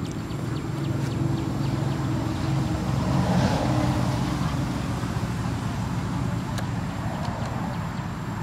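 An engine running steadily, a low drone that grows a little louder about three to four seconds in.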